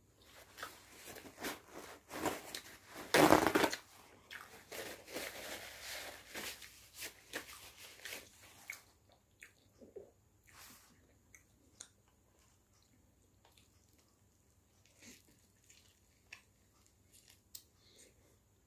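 Paper towel torn from a roll in one loud rip about three seconds in, amid several seconds of paper rustling and crumpling. After that, scattered small clicks and wet smacks of handling and chewing a wrap.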